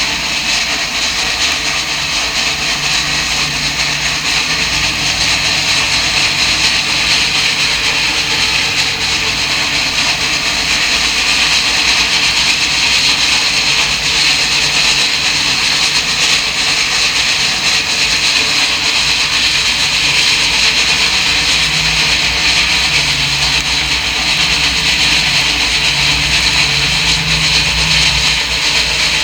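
DM&IR Yellowstone 2-8-8-4 articulated steam locomotive working past, its exhaust and running gear a steady rushing noise over a low rumble, with no separate chuffs standing out. The recording is old and comes from a vinyl record.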